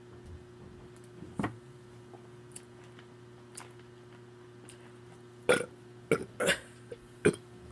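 A woman burping: a few short burps close together in the second half, over a faint steady hum.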